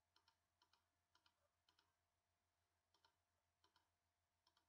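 Very faint computer mouse clicks, about seven spaced irregularly with a pause in the middle, over near silence and a faint steady electrical hum.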